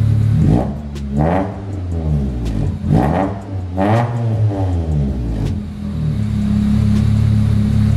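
Acura EL's 1.7-litre D17 four-cylinder, breathing through a newly fitted Speedfactory turn-down muffler, blipped in about four quick revs that rise and fall, then settling back to a steady idle about six seconds in. The exhaust note is deep.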